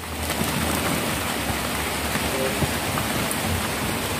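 Steady, even hiss with a few faint scattered ticks.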